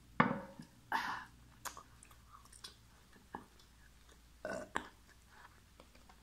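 Close-miked eating sounds: a few short, wet mouth noises of chewing and swallowing, the loudest right at the start. Small clicks and tearing come from fingers picking apart roast chicken.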